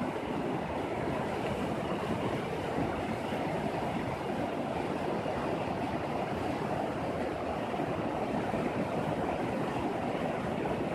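Shallow mountain river flowing steadily over stones and gravel, an even, continuous water noise.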